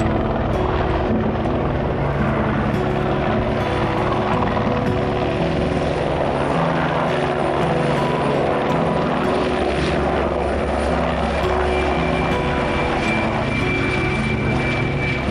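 Helicopter running steadily, its rotor beating over a dense engine noise; a thin high whine joins about three-quarters of the way through.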